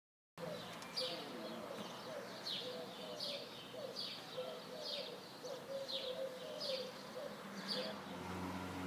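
Wild birds singing: a high, falling chirp repeated roughly once a second, over a lower warbling song. A steady low hum comes in near the end.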